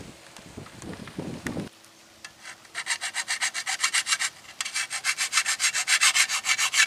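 Steel shovel blade being sharpened by hand: fast back-and-forth rasping strokes on the edge, starting about three seconds in with a brief pause partway through. The edge is being sharpened after going dull on stones.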